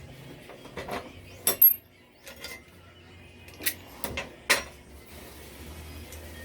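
Sharp metallic clinks and clanks, metal objects knocked together about eight times over the first five seconds, the loudest about a second and a half in.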